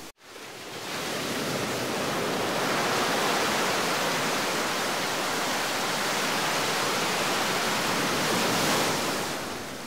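Steady rushing sound of sea surf, fading up over the first second and dropping back near the end.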